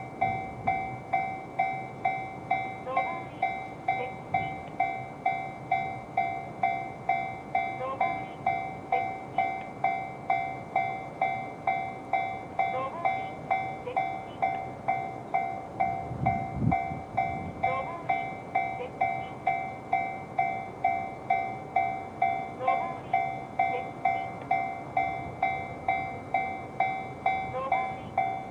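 Electronic level-crossing warning bell with the standard JR tone, dinging in an even, steady rhythm of about one to two strikes a second. It rings while the crossing is active for an approaching train.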